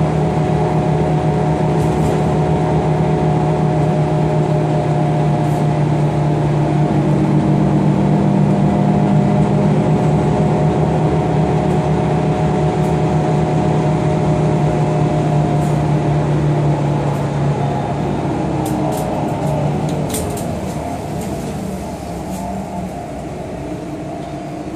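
Bus engine and road noise heard from inside the passenger cabin, a steady drone with a humming engine note. About two-thirds of the way through the engine note falls in pitch and the sound grows quieter, with a few light rattles.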